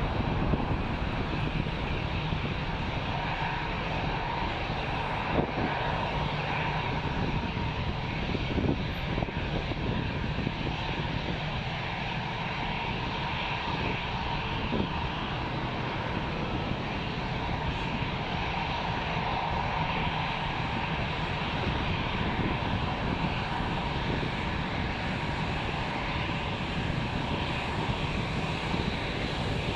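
Boeing 787 jet engines running at taxi power, a steady rush with a faint high whine as the airliner taxis. A few brief knocks stand out around five, nine and fifteen seconds in.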